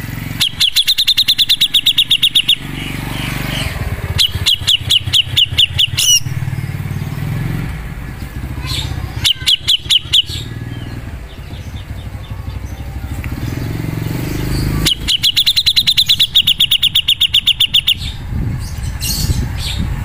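Caged cucak jenggot (grey-cheeked bulbul) singing in four bursts of fast, rattling repeated notes, each one to three seconds long, over a steady low rumble.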